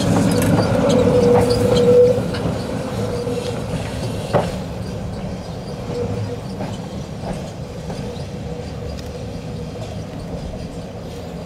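KTM-5 (71-605) tram rolling past on a curve, its wheels giving a steady squeal for the first two seconds, with one sharp clank about four seconds in; the running noise then fades as the tram moves away.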